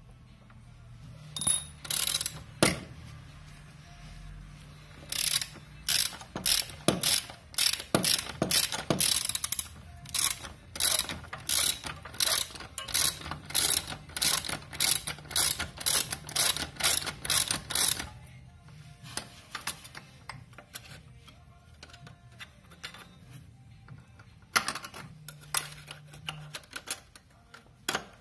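Ratchet wrench clicking in quick runs of strokes as it works a nut on a Lambretta scooter's clutch. It stops about two-thirds of the way through, with a few more clicks near the end.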